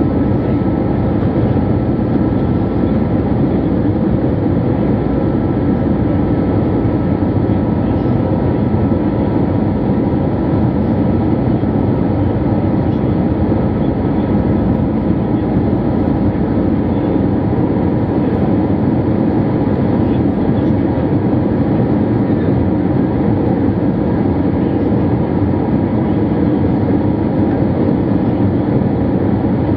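Steady cabin noise of an Airbus A321 in flight, heard from a window seat over the wing: engine and airflow rumble, with a faint high whine that fades out about halfway through.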